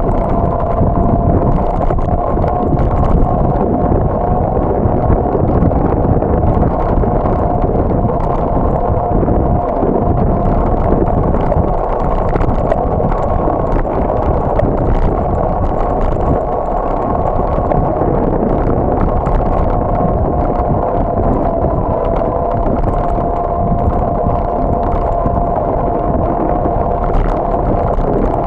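Steady rushing wind and road noise from a moving bicycle, with a steady high whine running through it.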